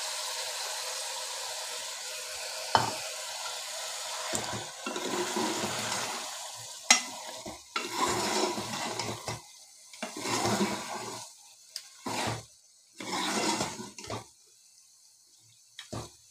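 Meat and ghee sizzling in a metal pot as mashed boiled turnips are tipped in, with a few sharp clicks of the spoon. A metal spoon then stirs and scrapes the mixture in irregular strokes while the sizzle dies down.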